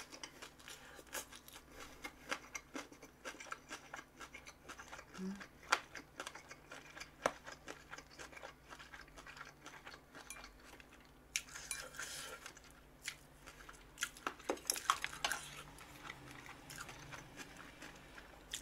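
Close-up crunchy chewing of spicy pork cartilage (odolppyeo), with many small clicks and crackles, and utensils clinking on dishes now and then.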